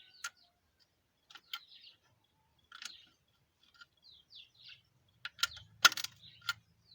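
A hand tool working a bolt: scattered sharp metallic clicks and short scrapes, coming thicker and louder about five to six seconds in.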